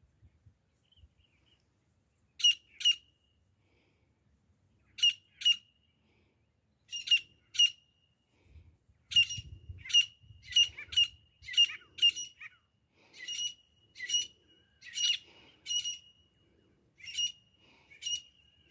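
Grey francolin calling: loud, sharp, high notes, first in spaced pairs, then in quicker runs of repeated notes about twice a second.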